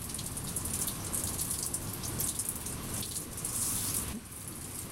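Cardboard packaging being handled: a continuous crackly rustling and scraping of the box and its wrapping, easing off about four seconds in.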